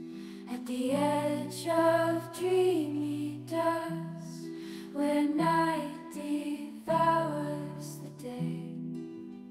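Slow, gentle background music: a gliding melody over held low chords.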